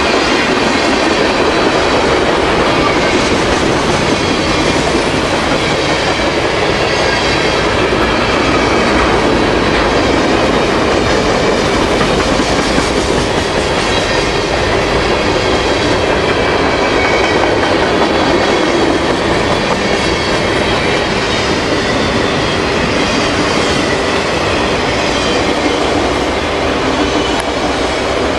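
Freight cars of a mixed manifest train rolling past close by: steady wheel-on-rail noise with clicking over the rail joints and a faint high squeal from the wheels.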